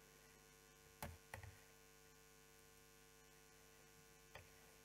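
Near silence: a faint steady electrical hum, with a few faint clicks about a second in and again near the end.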